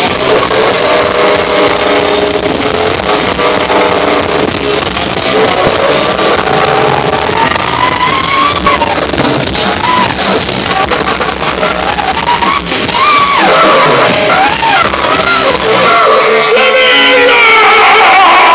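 Live rock band playing at full volume, recorded close to the stage, with a baritone saxophone among the instruments and a wavering lead line in the middle; it grows louder near the end.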